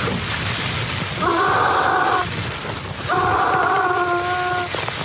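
Inflatable camping pillow being blown up by mouth: two long breaths into its valve, each heard as a steady tone lasting about a second, the second one longer.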